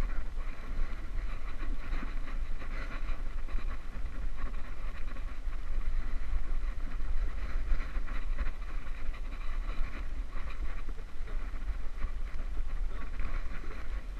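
Steady low rumble and rubbing noise from a GoPro camera strapped to a dog, jostled as the dog moves about on the grass.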